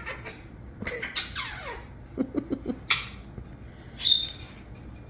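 Pet parrot making a string of short calls and mimicked noises: a falling whistle, then a quick run of low pulses, a sharp squawk, and a short high whistle.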